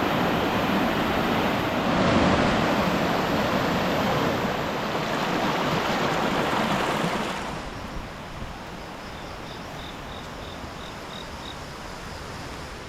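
Waterfall rushing in a steady roar of falling water that drops sharply in level about three quarters of the way through. A faint run of high, evenly spaced chirps, about three a second, is heard over the quieter rush near the end.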